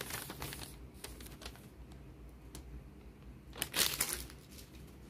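Sheet of paper rustling and crinkling as it is handled, in a run of rustles over the first second and a half and a louder burst about three and a half seconds in.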